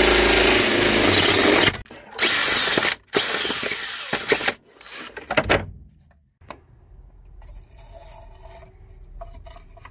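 DeWalt drill spinning a spiral auger bit through wood to enlarge a hole, in three runs: about two seconds, a short burst, then a longer run that tails off about four and a half seconds in. Fainter, scattered sounds follow.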